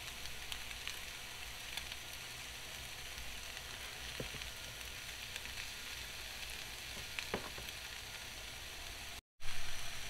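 Steak, onions and mushrooms frying on an electric griddle heated to about 350 degrees: a steady sizzling hiss with scattered small pops. The sound drops out for a moment near the end.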